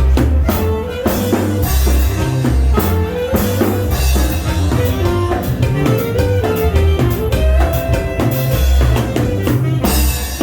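Dance music with a steady, heavy beat of drums and bass and melody notes above it.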